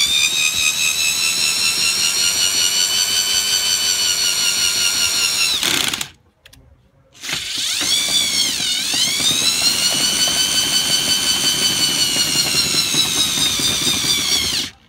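CAT 1300 W corded electric drill running a 19 mm socket on an extension to wind a caravan's corner steady leg. The motor whines steadily in two runs, stopping for about a second and a half near the middle, and dips briefly in pitch early in the second run.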